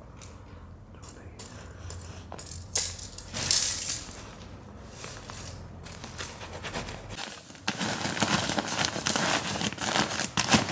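Insulation and its plastic wrapping crinkling and rustling as they are handled and stuffed into place, with scattered knocks. A steady low hum stops about seven seconds in, and the crinkling grows busier and louder.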